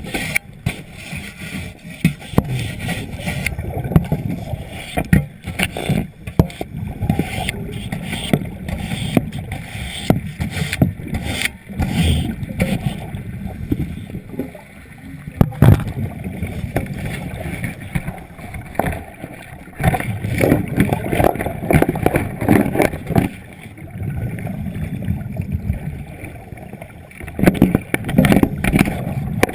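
Muffled underwater water noise heard through a GoPro's waterproof housing held below the surface, uneven sloshing and gurgling with frequent short knocks and scrapes from the camera being handled.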